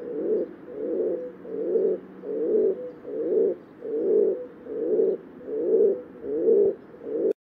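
Rock pigeon cooing: a steady run of low, repeated coos, a little more than one a second, that cuts off abruptly near the end.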